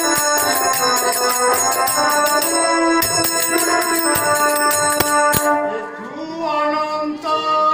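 Live stage accompaniment: an organ-like keyboard holding steady chords over a regular percussion beat, which stops about five and a half seconds in; a voice then begins singing.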